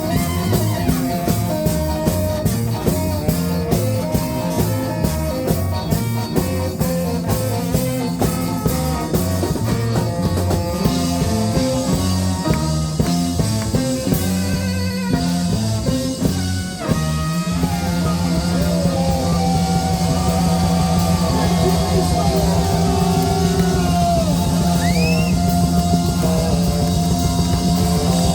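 Live ska band playing with guitar and drums, a steady driving rhythm. About two-thirds of the way through the beat stops and the band holds a long, sustained chord over a steady bass note.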